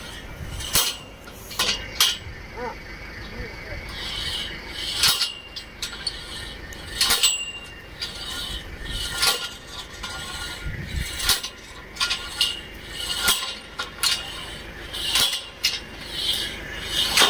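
Borewell drilling rig's rope-and-pulley hoisting gear working: irregular metallic clicks, clanks and short squeaks, about one or two a second, over a steady low rumble.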